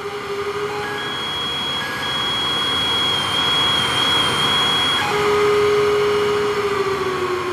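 Analog synthesizer drone through studio monitors: a wash of noise under held steady tones that change every second or two, with a high tone that wavers around three to four seconds in and a low tone that glides slowly downward near the end.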